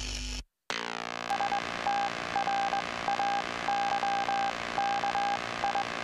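Electronic logo-intro sound effect: a short burst of noise, then a held synthesizer chord with a high beep pulsing on and off in irregular short and long beeps, like Morse code.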